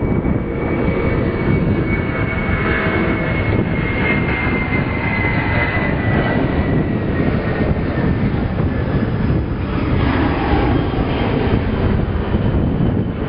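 Jet aircraft engine noise at an airport: a steady loud rush with a high whine that slowly falls in pitch over the first half.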